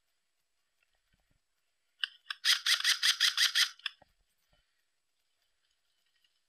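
Airsoft electric rifle firing a rapid full-auto burst of about two seconds, starting about two seconds in, with sharp, evenly spaced shots.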